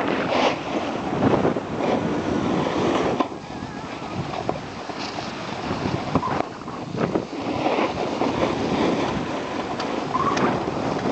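Wind buffeting the microphone over the hiss and scrape of snowboards sliding over the snow while riding downhill.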